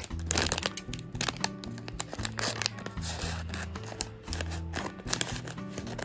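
Scissors cutting through a plastic blind-bag package, the packaging crinkling as it is handled, over background music.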